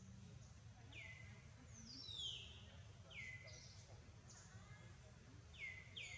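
Faint bird calls: about five short notes, each sweeping quickly down in pitch, spaced irregularly over a low steady background hum.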